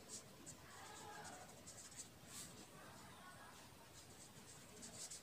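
Faint scratching of a pen writing on paper in short strokes.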